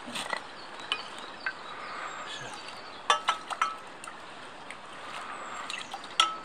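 Metal ladle clinking against an enamel saucepan as water is scooped and poured in: a few light clinks early, a quick cluster about three seconds in and a loud clink near the end, over the steady rush of a stream.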